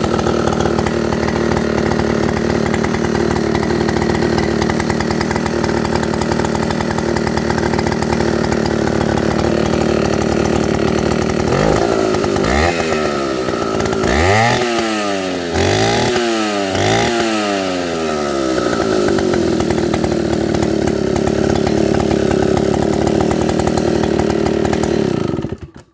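Vintage Solo 635 two-stroke chainsaw running steadily with its throttle held open, then revved up and down several times in the middle before settling back to a steady run. The engine cuts off near the end.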